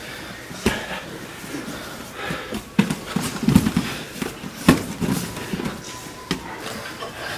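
Two grapplers scuffling on foam mats: irregular thumps of bodies, hands and bare feet hitting the mat, with skin and clothing scraping between them. The loudest thump comes about two-thirds through.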